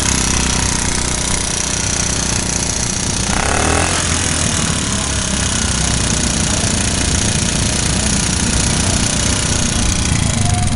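1969 Honda QA50 mini bike's small single-cylinder engine running steadily at idle, heard up close.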